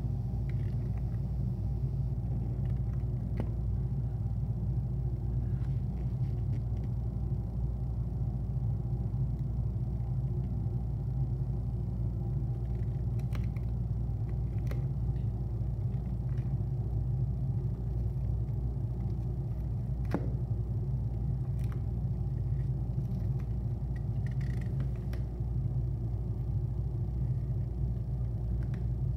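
A steady low rumble runs throughout, with a few faint, sharp clicks scattered through it from a small tortoise biting into a romaine lettuce leaf.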